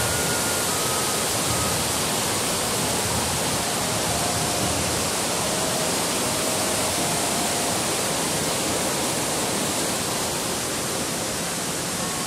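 Steady rushing of water, like a waterfall or fast stream, an even unbroken hiss.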